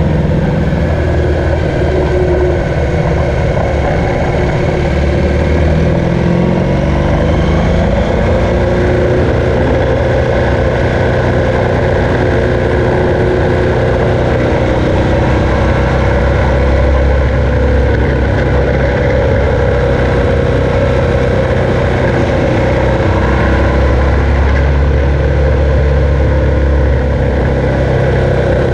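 BMW R1200GS's air-and-liquid-cooled boxer twin engine running under way, with road and wind noise; the engine note rises for a few seconds about six seconds in.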